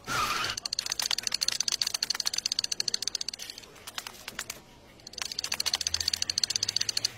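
Thin wire legs of a small animated creature skittering across a hard tiled floor: rapid light clicking, many taps a second, with a short louder burst at the very start and a quieter pause of about a second and a half in the middle.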